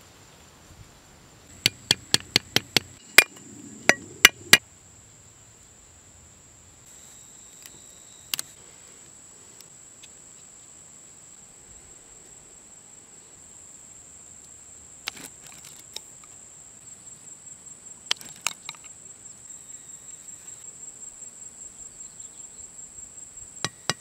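Sharp knocks of a cleaver blade chopping and tapping bamboo sticks. They come in clusters: a quick run of about eight strokes in the first few seconds, scattered single strokes in the middle, and another quick run near the end. A steady high insect drone runs underneath.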